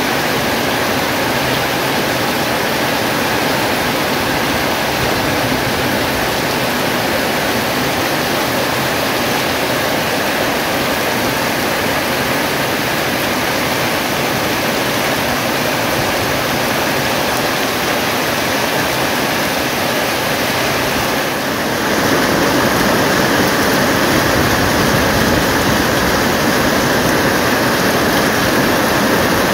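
Heavy rain falling steadily, a dense, unbroken hiss. About three-quarters of the way through it becomes louder and fuller.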